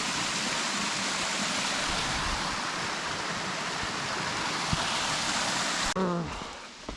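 Waterfall rushing as a steady hiss. It drops off suddenly about six seconds in.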